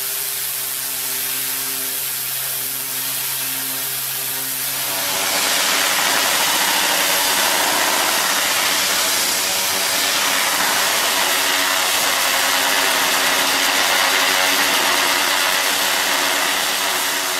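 High-pressure water jet hissing as a pressure-washer lance blasts marine growth off a ship's hull, over the steady hum of the washer's engine-driven pump. About five seconds in, the spray hiss gets louder and the low hum drops back.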